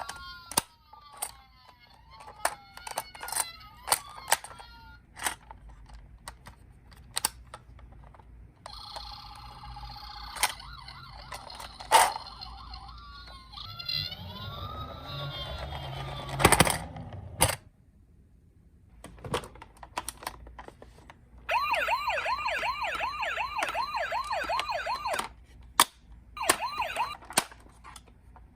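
Several toy ambulance minicars' electronic sirens sounding over one another. They switch between slow rising-and-falling wails, steady tones and, near the end, a fast repeating yelp. Sharp plastic clicks and knocks come from the toy cars throughout, with one loud knock a little past the middle.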